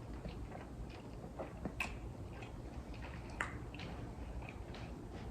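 A person chewing sushi with the mouth close to the microphone: faint wet mouth clicks and soft chewing, with a couple of sharper clicks about two and three and a half seconds in.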